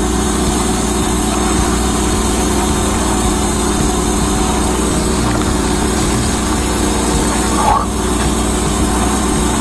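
High-pressure drain jetter running steadily, its engine-driven pump humming under a hiss of water, used to clear a blocked drain line.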